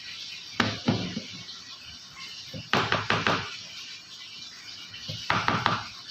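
Sharp knocks and clatter in three short bursts, a few hard hits each: one about half a second in, one near the middle, one near the end.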